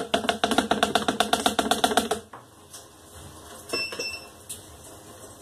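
A hard plastic tub rattles fast against the rim of a plastic mixer bowl as flour is shaken out of it, about ten hollow knocks a second for two seconds. A few lighter clicks and taps follow.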